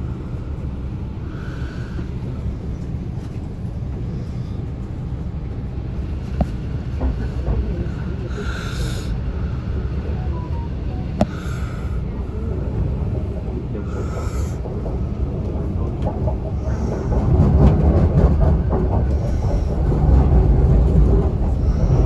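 Inside an MTR Kwun Tong Line C-train car pulling out of a station and running along the elevated line: a steady rumble of wheels and running gear on the rails, growing louder about seventeen seconds in.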